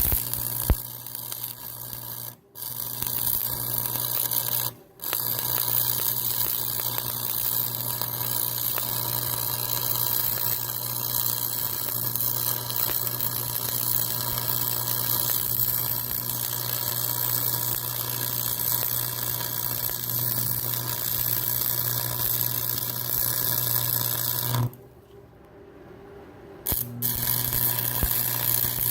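Stick (arc) welding: the electrode's arc crackling and sizzling steadily over a low hum. The arc breaks off briefly twice in the first five seconds, then stops for about two seconds near the end before striking again.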